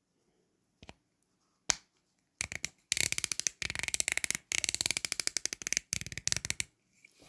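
Plastic LEGO pieces clicking as they are handled: two single clicks, then about four seconds of rapid, evenly spaced clicking.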